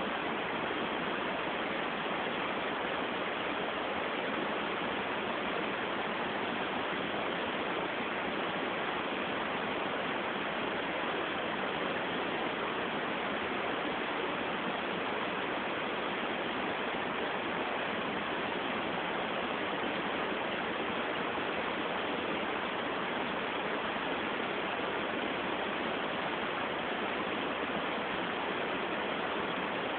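A steady, even hiss that holds the same level throughout, with no other sound standing out.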